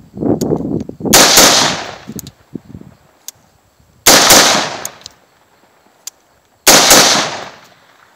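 Three semi-automatic shots from an AR-15 rifle, fired slowly about three seconds apart, each a sharp crack with a ringing tail that dies away over about a second.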